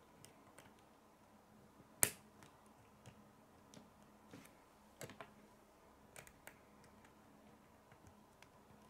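Plastic K'nex rods and connectors clicking into place as they are fitted together by hand. There is one sharp click about two seconds in, another about five seconds in, and a few lighter clicks.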